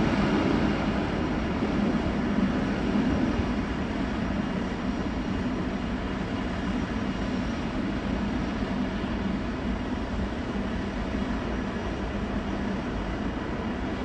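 Jet engine noise from a Boeing 777-300ER's twin GE90 turbofans, heard from a distance as the airliner rolls out along the runway after landing. The noise is steady and slowly gets quieter.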